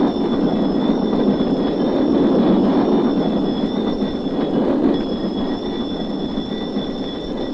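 A train passing at speed over a level crossing: a steady, dense rumble that eases a little about five seconds in, with two thin steady high tones above it.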